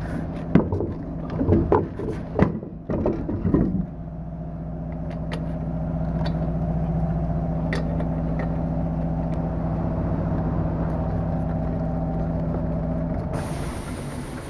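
Metal clanks and knocks as a truck's steel wheel is handled onto the hub studs. From about four seconds in, a steady mechanical hum with a few small metallic clicks over it, which drops away near the end.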